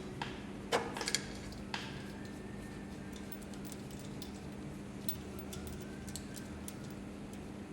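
A few light clicks and knocks in the first two seconds, as small metal parts such as screws are handled, then only faint scattered ticks over a steady low hum.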